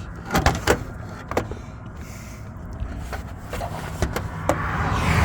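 Scattered sharp clicks and knocks of objects being handled, over a steady low rumble. Near the end a vehicle-like noise swells up and gets louder.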